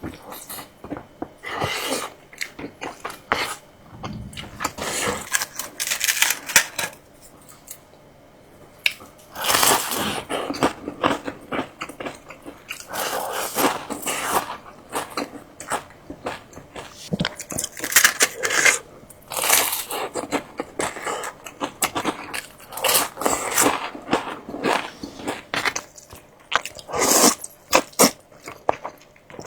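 Close-miked eating: crunchy bites and chewing in irregular bursts, with a short lull about seven seconds in.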